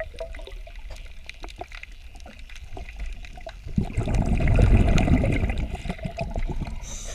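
Underwater sound during hull cleaning: a diver's scuba exhalation bubbles, a loud bubbling gurgle that swells about four seconds in and fades a couple of seconds later, over steady crackling clicks in the water.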